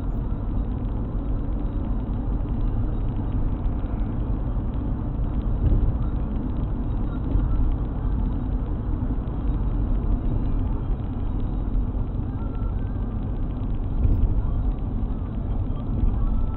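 Car driving along at steady speed, heard from inside the cabin: a continuous low road and engine rumble with no sudden events.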